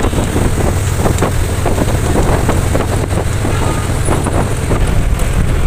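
Moving bus heard from inside: a steady low engine and road rumble with wind noise and light rattling.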